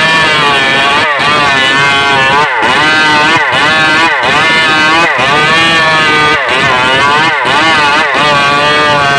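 Stihl MS381 two-stroke chainsaw running at high revs, its pitch dipping sharply and climbing back about once a second.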